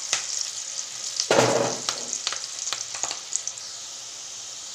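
Potato sticks deep-frying in hot oil in a pan, a steady sizzle with bubbling. A louder surge of sizzling comes about a second and a half in, with a few light clicks after it, and the sizzle then settles quieter and steadier near the end.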